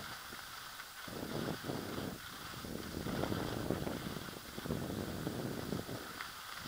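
Wind buffeting a moving camera's microphone in uneven gusts of rumble, over a steady hiss of movement across snow.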